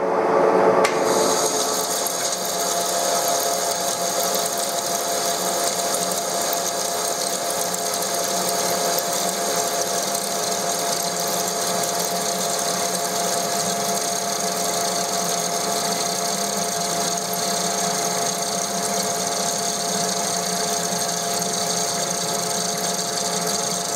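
TOS SN63B engine lathe turning steel under a heavy roughing cut, 4 mm deep at a high feed of 0.4 mm per revolution. The spindle drive and the carbide tool cutting give a steady, even machining noise with a couple of steady whining tones.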